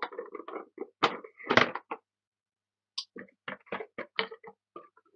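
Cardboard box and packaging being handled while a light-up figure is pulled out: a cluster of rustling and scraping with a thump about a second and a half in, then after a short pause a run of separate taps and clicks.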